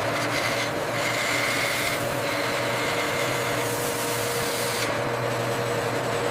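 Factory machinery running steadily: an even hiss with a low hum underneath and a few held tones.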